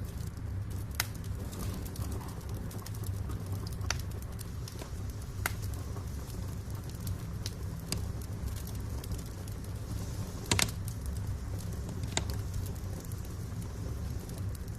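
Wood fire crackling in a fireplace: sharp, irregular pops and snaps over a steady low rumble, the loudest pop a little over two-thirds of the way through.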